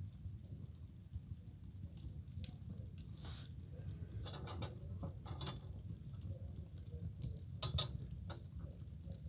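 Wood fire burning in a fireplace as it is being lit: irregular crackles and pops over a steady low rumble, with a louder double pop about three-quarters of the way through.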